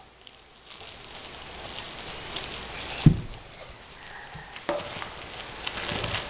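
A dog working at a plastic cracker package with its mouth and paws, the wrapper crinkling and rustling with small clicks, and a single low thump about three seconds in.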